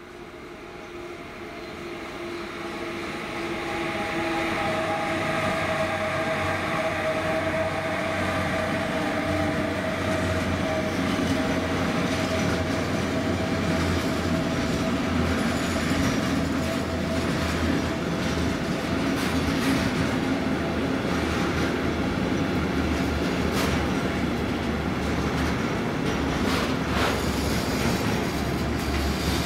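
A train approaching and running past. It grows louder over the first few seconds, then holds a steady rolling rumble of wheels on rail. A humming tone fades out in the first ten seconds or so, and a few sharp clacks come in the second half.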